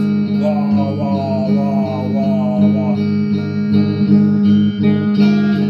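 Electric guitar strummed in a steady rhythm, a low chord ringing on under the repeated strokes.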